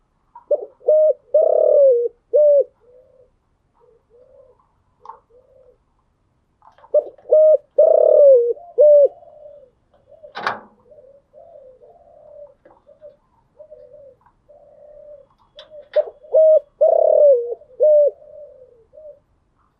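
Spotted dove cooing: three loud phrases of its rhythmic coo song, about eight seconds apart, with softer notes in between. A single sharp click comes about halfway through.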